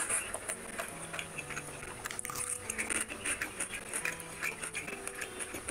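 Close-miked chewing and lip smacking of a mouthful of rice and mutton curry, with irregular wet clicks and squelches as fingers work through rice and gravy.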